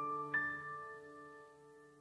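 Background music ending: a last keyboard note is struck about a third of a second in and left ringing, fading away.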